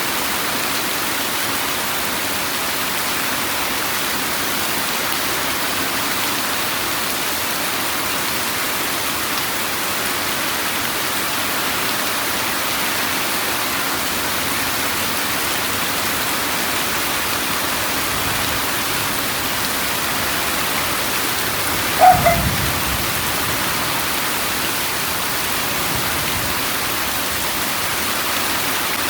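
Steady rain, an even hiss. About three-quarters of the way through, a short, sudden crack with a brief low rumble stands out above it.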